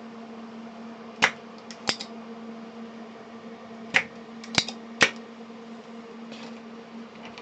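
Five sharp clicks and taps of small metal tools against a circuit board while a component is being desoldered, heard over a steady low electrical hum.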